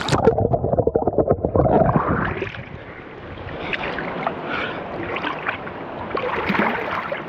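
River water splashing and sloshing around a person bathing in it. It is loud, muffled and bubbling for the first couple of seconds, then settles to quieter sloshing with small splashes.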